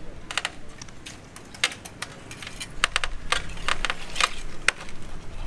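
Irregular light knocks and clinks of hand tools on building materials, a dozen or so scattered sharp strikes over low background rumble.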